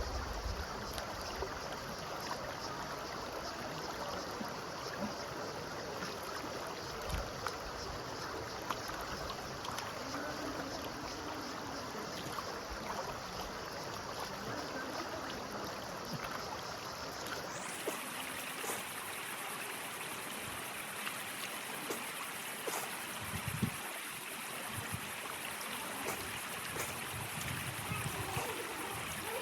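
Steady rush of running water from a mountain stream, with occasional low buffets of wind on the microphone.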